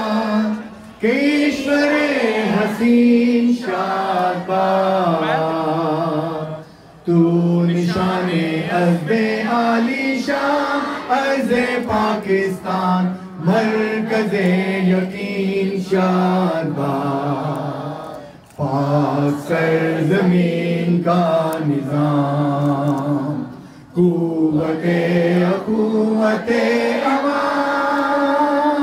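Singing: a melodic vocal line over a steady low held note, sung in long phrases broken by a few short pauses.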